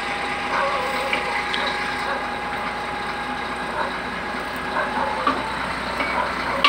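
Truck engine running steadily, with a few faint knocks and clicks.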